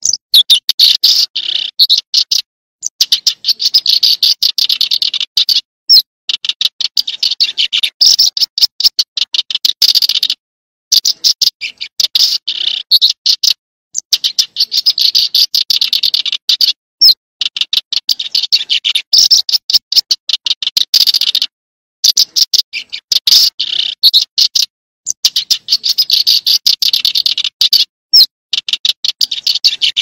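Recorded song of a small grassland songbird (the 'chim sẻ đồng'): phrases of rapid, dry, buzzy high-pitched notes a few seconds long, separated by brief breaks of dead silence, as in an edited, looped recording.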